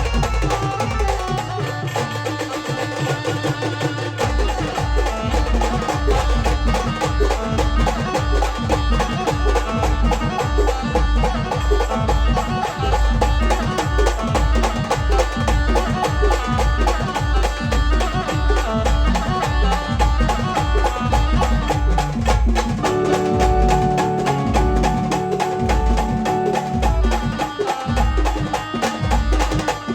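Folk band music with a fast, heavy drum beat and melody instruments; the deep drum comes in about four seconds in.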